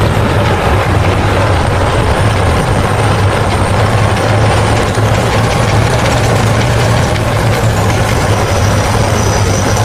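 Tank driving: its heavy engine runs with a steady low rumble under the dense rolling noise of the tracks.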